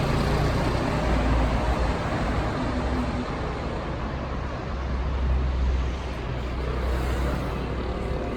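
Steady city road traffic: passing motor vehicles with a continuous low engine rumble and road noise.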